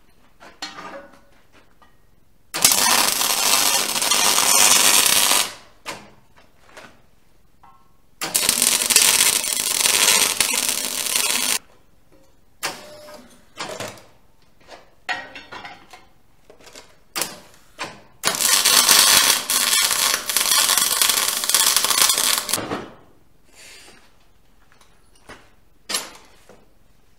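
Electric arc welding: three runs of a few seconds each, each a dense steady hiss. Between the runs come short clanks and taps of metal being handled on the bench.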